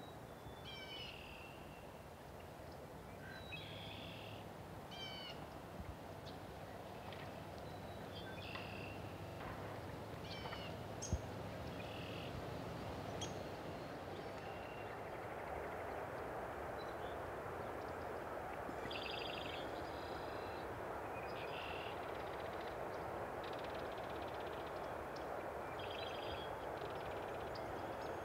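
Birds calling in short, repeated high bursts over a steady rushing background noise that slowly grows louder; one sharp click about eleven seconds in.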